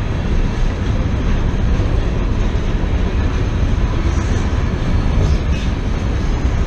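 Freight train of covered hoppers and boxcars rolling past close by: a loud, steady noise of steel wheels on rail.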